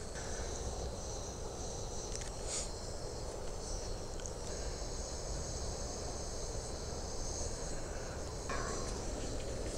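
Steady high-pitched insect chorus over a continuous low rumble, with a few faint clicks.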